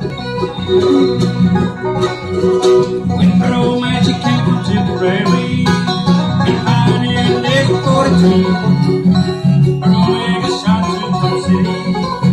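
Acoustic bluegrass band playing live: mandolin, fiddle and guitar over a steady, pulsing low end.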